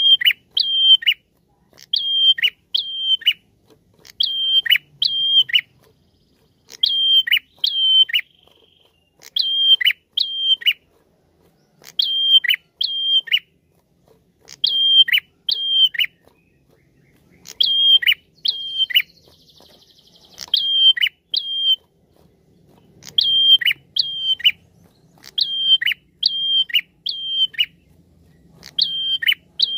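Ashy tailorbird (kept as a 'prenjak') calling loudly in pairs of notes every two to three seconds. Each note is a short high whistle that drops sharply in pitch. A brief buzzy trill comes about two-thirds of the way through.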